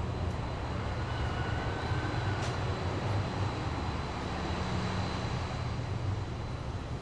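Urban street ambience: a steady low rumble of vehicle engines and traffic, swelling slightly midway, with a single sharp click about two and a half seconds in.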